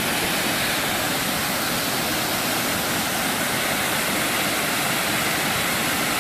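Waterfall pouring steadily down a rock cascade: a loud, even rush of water.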